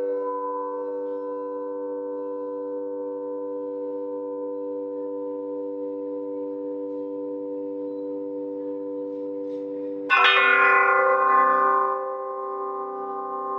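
A row of hanging metal plates struck with a mallet, ringing with several steady overlapping tones that slowly fade. About ten seconds in, a fresh, louder strike rings out brightly and then settles back into the sustained hum.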